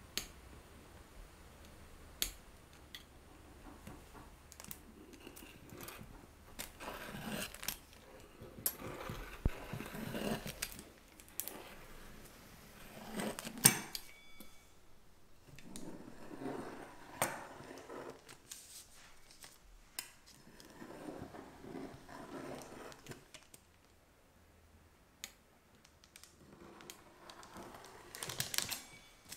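Knife blade drawing through rolled pie dough along a steel ruler in repeated strokes, with a few sharp metal clicks as the ruler and knife are handled. Near the end a pizza wheel cutter rolls through the dough.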